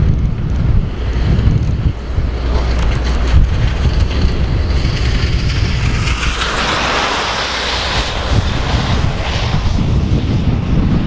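Strong wind buffeting the camera microphone with a heavy, uneven low rumble. A rushing hiss swells about six seconds in and fades by about nine and a half seconds.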